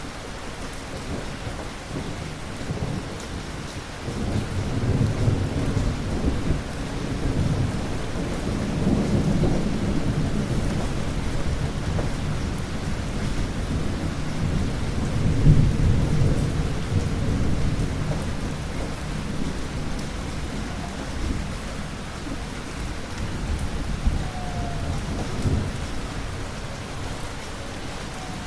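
Rolling thunder over steady rain. A low rumble builds about four seconds in, swells to its loudest near the middle and dies back into the rain, with a smaller rumble near the end.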